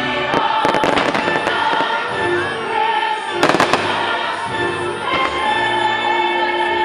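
Aerial fireworks going off in two quick clusters of bangs, about half a second in and again about three and a half seconds in, over the fireworks show's music.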